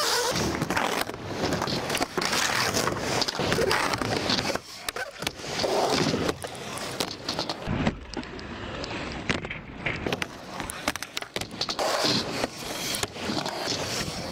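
Skateboard wheels rolling over concrete, broken by repeated sharp clacks and slaps of the board hitting the ground.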